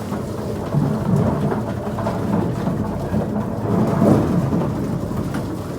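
Electric potato chip (French fry) cutting machine running with a steady rumble as potatoes are cut, with water splashing.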